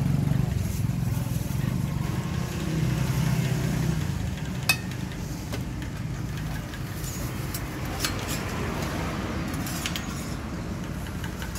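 Motor vehicle engine running close by on the street, a low steady hum for the first few seconds that then fades into general street noise. About halfway through there is one sharp clink, followed by a few lighter clicks later on.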